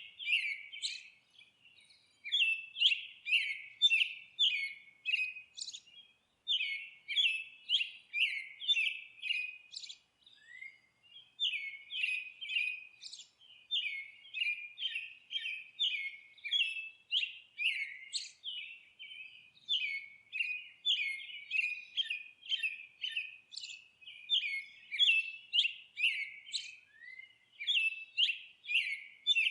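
Small songbirds twittering in quick runs of short, high chirps, several a second, almost without a break and with brief pauses about a second in and about ten seconds in.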